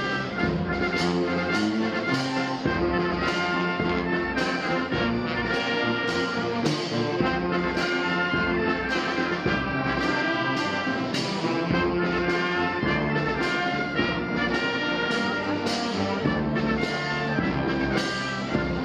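Wind band of brass and woodwinds playing a symphonic march: sustained brass chords and melody over a steady march beat of about two strokes a second.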